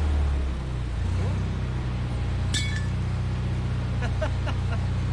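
John Deere 755 compact utility tractor's diesel engine running steadily, its note shifting just after the start. A single sharp metallic clink rings out about halfway through.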